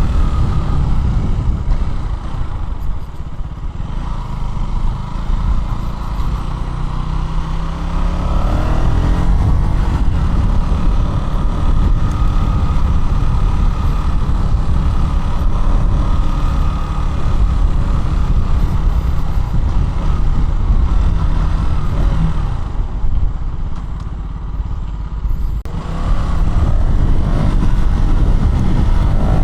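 KTM Duke 200's single-cylinder engine running while riding, easing off twice and revving back up with a rising pitch about eight seconds in and again near the end.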